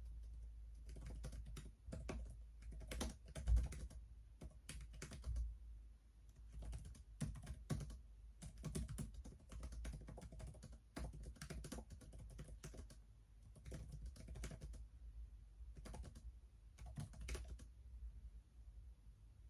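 Typing on an HP laptop keyboard: irregular runs of quick keystrokes broken by short pauses, with one harder tap about three and a half seconds in.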